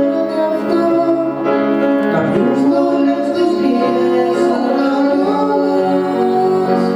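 Three women singing a song together, accompanied by a grand piano, with long held notes.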